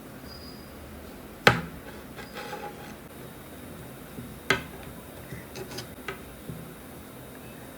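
Two sharp knocks of hard objects about three seconds apart, with lighter clicks and taps between them.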